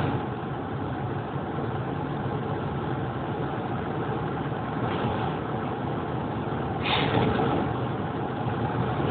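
Steady engine and road noise of a car driving on a highway, heard from inside, with a short louder rush of noise about seven seconds in.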